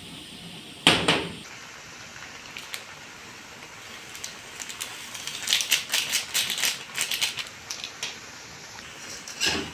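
A seasoning sachet crinkling as it is shaken over sliced bottle gourd in a metal wok, making a quick run of crisp clicks in the middle, over a faint steady hiss. A sharp knock comes about a second in and another near the end.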